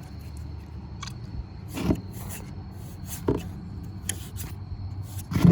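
A handful of separate knocks and clicks, about five, over a low steady hum.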